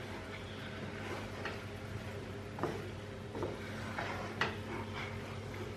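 Wooden spatula stirring a sauce in a metal frying pan, with a few soft knocks and scrapes of the spatula against the pan.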